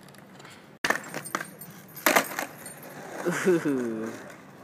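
Skateboard clacks and pops on asphalt about a second in, then a louder clattering landing of the board about two seconds in, with wheels rolling afterward. Near the end a voice gives a short falling exclamation.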